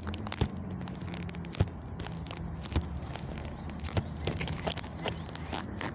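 A steady low hum runs under scattered sharp clicks and crackles, the sort of handling and rubbing noise a handheld smartphone's microphone picks up while it is carried and panned.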